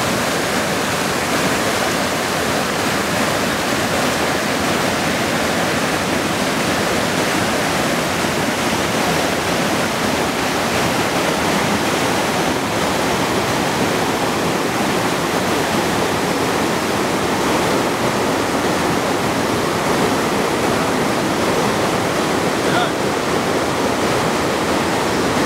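Rushing water of a rocky stream, a steady, even rush with no break.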